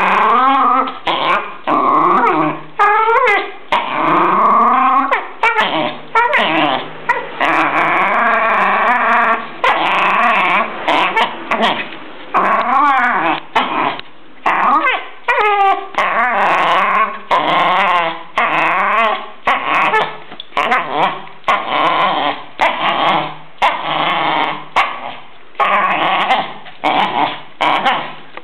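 Jack Russell terrier growling in long bouts with short breaks between them, the growls bending up and down in pitch and rising into whines and yips: play growling while tugging at a toy.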